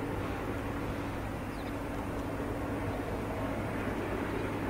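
Airbus A350-900 airliner on final approach, its Rolls-Royce Trent XWB jet engines heard as a steady rushing drone.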